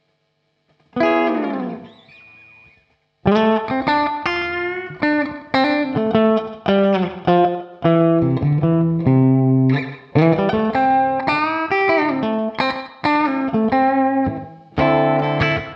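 Electric guitar played through Guitar Rig amp-simulation software. About a second in, a struck chord slides down in pitch; from about three seconds a melodic lead phrase of picked single notes follows.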